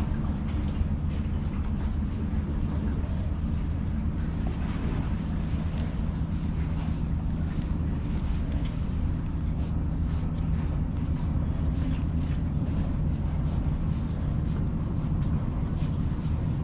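An engine running steadily with a low, even hum that does not change in pitch, with light clicks over it.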